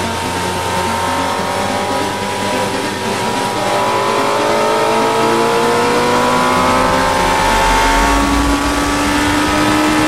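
Sport bike engine heard from on board, its pitch rising steadily for several seconds as it accelerates hard, over a constant rush of wind and road noise. Near the end the engine settles to a lower, steadier note.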